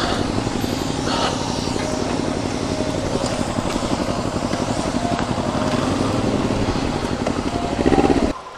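Motorcycle engine running at low speed while the bike rolls slowly, with a steady fast pulsing. It swells briefly near the end, then stops suddenly.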